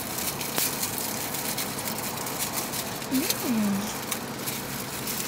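A person eating takeout food by hand: faint clicks and rustles from handling the food over a steady background hiss, with a short falling hum of enjoyment ("mmm") a little past three seconds in.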